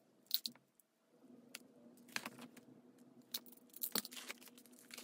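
Scattered light clicks and taps of album contents (photocards, inserts, packaging) being handled and sorted by hand, over a faint steady hum.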